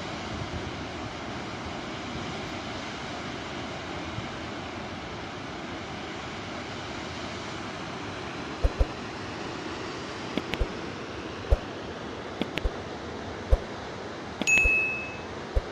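Steady rushing of muddy floodwater pouring down a wadi in spate. From about nine seconds in come several sharp clicks, and near the end a short bell-like ding rings and fades.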